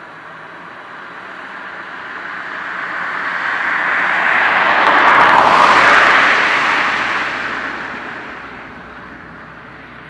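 A vehicle passing by: its noise swells steadily over several seconds, is loudest about halfway through, then fades away.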